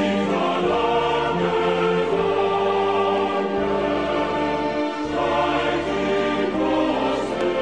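Choir singing slow, sustained chords over orchestral accompaniment, with the bass line moving to a new chord every second or so.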